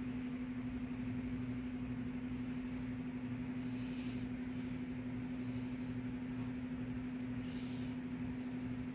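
A steady mechanical hum with a faint regular pulsing beneath it.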